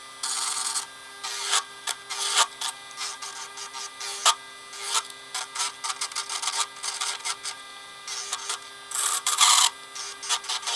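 Small electric motor of a CNC007 mini lathe running with a steady hum, while a turning tool cuts and scrapes the spinning black alder blank in irregular short rasping bursts with sharp clicks.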